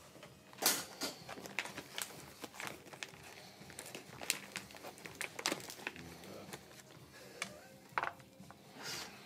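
Irregular clicks, taps and crinkling rustles from brewing gear being handled, at uneven intervals, with a few sharper knocks about a second in, near the middle and near the end.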